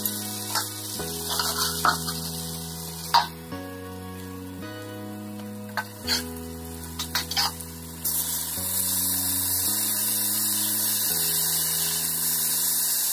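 Raw papaya and potato bhaja sizzling as it fries in oil in a kadai, with a spatula knocking and scraping against the pan several times. The sizzling grows louder about eight seconds in.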